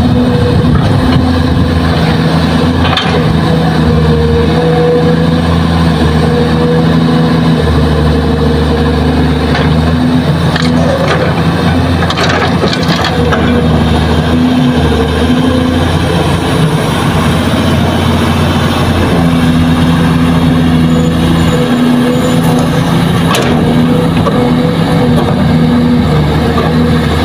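Kobelco SK200 excavator's diesel engine running under load as it digs and swings soil into a dump truck. The engine note shifts several times as the hydraulics work, with a few sharp knocks of bucket and falling dirt.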